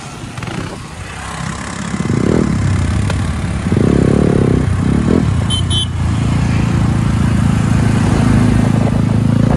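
Motorcycle engine revving in three quick swells, then running loud and steady under way, with wind and road noise. Two short high beeps sound about halfway through.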